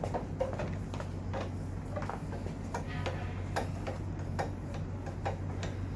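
Irregular light clicks and taps, about ten in a few seconds, of hand tools working on metal motorcycle parts, over a steady low hum.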